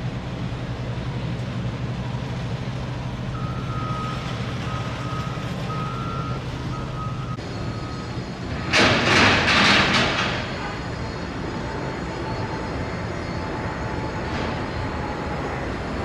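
Heavy vehicles at a construction site: a diesel engine idling, a reversing alarm beeping for about four seconds, then a loud hiss of released air, like an air brake, about nine seconds in, lasting about a second and a half.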